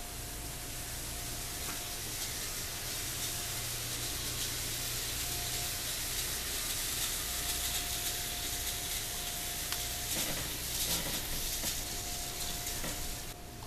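Several N-scale model diesel locomotives running along straight track at once: a steady hiss of small motors and wheels on rail, with a faint high whine that comes and goes and a few light clicks near the end.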